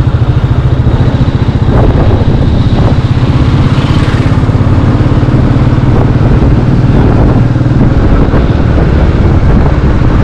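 Royal Enfield Meteor 350's single-cylinder engine running steadily under way, with a low, fast-pulsing exhaust note; the note shifts slightly about eight seconds in.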